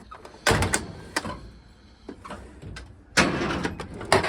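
Drawers of a Kirkland steel tool chest sliding on their runners: a short slide about half a second in, and a longer one near the end.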